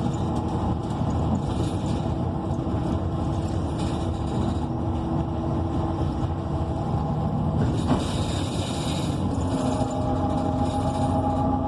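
Transit bus with a Cummins Westport ISL G natural-gas engine and Allison B300R automatic transmission, heard from inside as it drives: a steady rumble with a whine whose pitch drops about nine and a half seconds in. A short knock and a brief hiss come about eight seconds in.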